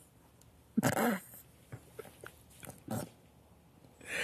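Brief bursts of quiet laughter from two people, a short high falling laugh about a second in, then a smaller one and a breathy exhale near the end.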